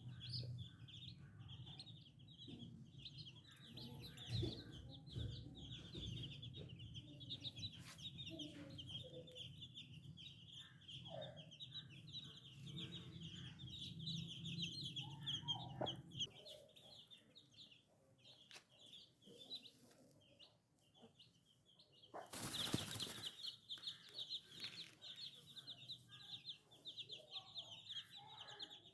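A brood of baby chicks peeping continuously in dense, high chirps, with an occasional hen's cluck. A low steady hum underneath stops about halfway through, and a brief loud rustle about two-thirds of the way in is the loudest moment.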